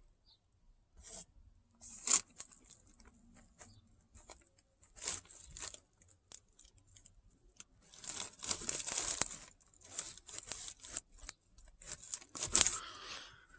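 Intermittent handling noise: plastic sheeting crinkling and light scraping as a hand works along the windshield base, with a longer rustle about eight seconds in.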